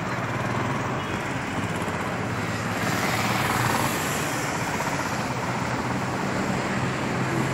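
Steady road traffic noise from a seaside road, with a low engine hum that grows a little stronger near the end.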